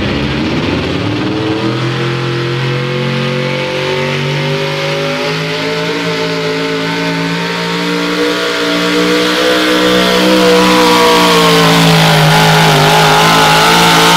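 Modified 4x4 pulling truck's supercharged engine at full throttle under load while dragging a weight-transfer sled. It revs up over the first second or two, holds high rpm, then climbs and gets louder in the last few seconds.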